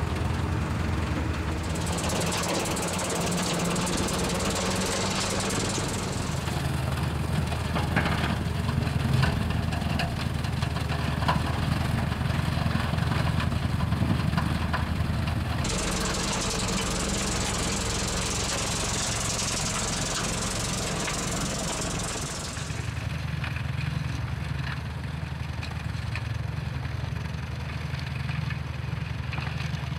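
Tractor engine running steadily under load, driving a Shelbourne Powerspread Pro 3200 side-discharge manure spreader as it spreads muck. A higher hiss comes in for a few seconds near the start and again for several seconds around the middle.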